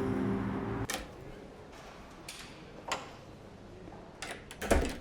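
Background music that cuts off about a second in, followed by a few scattered light clicks and knocks, the loudest a low knock near the end.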